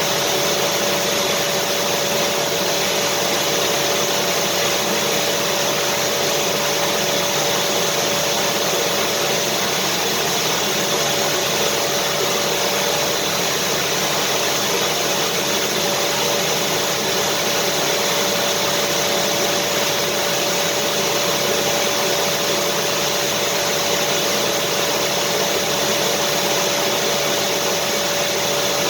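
Vacuum cleaner running steadily with a constant whine, used as white noise to soothe babies.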